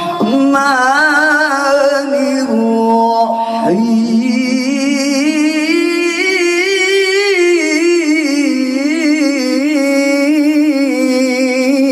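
A man's solo melodic Quran recitation (tilawah), amplified through a handheld microphone: long held notes with quick wavering ornaments. The pitch slides up a little under four seconds in, and one long ornamented note follows.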